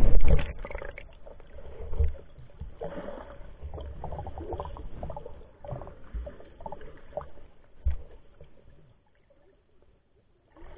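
Muffled underwater sloshing heard through an action camera's waterproof housing as it goes under the sea, with a loud splash at the start and a few sharp knocks. It falls almost silent about nine seconds in.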